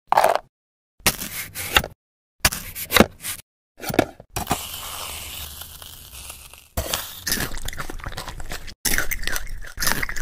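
A knife cutting into a slime-filled glitter novelty cake: four short crunchy strokes, then a few seconds of steady hiss, then longer stretches of sticky crackling as the glitter slime is handled.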